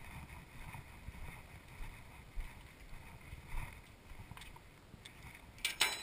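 Low rumble of wind and handling on a body-worn camera's microphone, with scattered faint knocks and a short clatter of louder clicks near the end.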